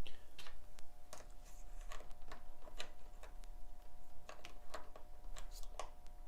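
Small, sharp clicks and taps at irregular intervals: watch-repair tools handling the parts of a Seiko watch during servicing.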